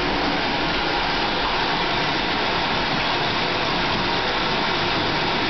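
Steady rushing of water running into a bathtub, unbroken and at an even level throughout.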